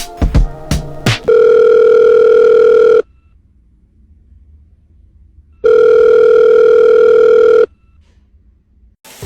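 Telephone ringing tone heard down the line: two long steady beeps of about two seconds each, with a pause between them. The end of a music track with a beat plays in the first second.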